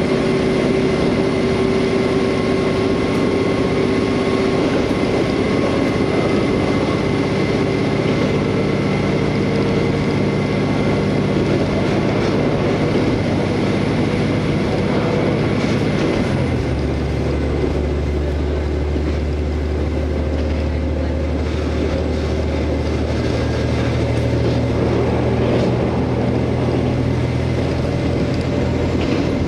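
KiHa 47 diesel railcar under way, heard from inside the car: a steady diesel engine hum over the constant noise of the train running on the rails. About halfway through, the engine note drops to a lower pitch and stays there.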